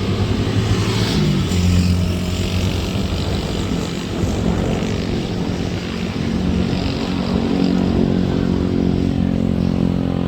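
Motor vehicle engine running close by, its pitch stepping up about a second in and then holding steady, over road and wind noise on the microphone of a moving bicycle.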